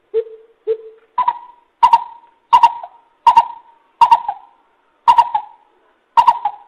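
Coucal hooting: two short, lower hoots, then a run of seven higher, deeper-toned hoots spaced a little over half a second apart, each trailing a brief echo.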